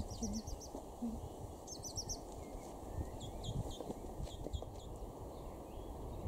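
Small birds singing in quick runs of short, high chirps, in clusters about two seconds in and again a second or so later, over a constant low rumble of wind on the microphone.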